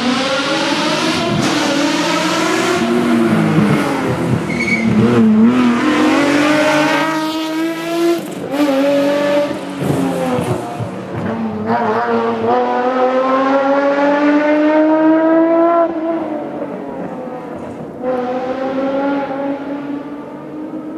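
Nissan 370Z's 3.7-litre V6 accelerating hard, its pitch climbing steadily, then dropping back and climbing again several times as it pulls through the revs.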